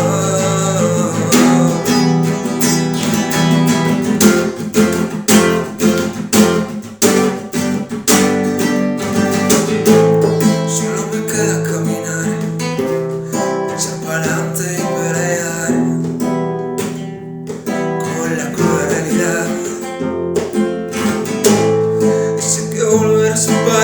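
Instrumental break in a Spanish pop song: acoustic guitar strummed and plucked over a steady accompaniment, with flamenco-style rapid strokes.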